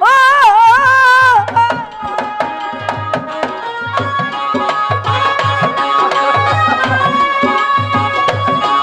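Jatra stage music: a voice holds a wavering sung note for about a second and a half, then an instrumental passage follows, with a hand drum beating a repeating pattern under a sustained melody line.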